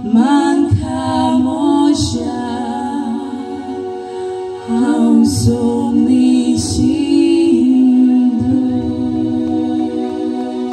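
Live singing of a Konkani song, long held notes that slide between pitches, over musical accompaniment with a few sharp percussive hits.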